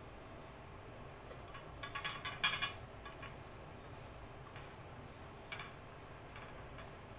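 Fingers mixing rice with curry gravy on a plate: a short run of wet crackling clicks about two seconds in, with a few fainter clicks later, over a faint low hum.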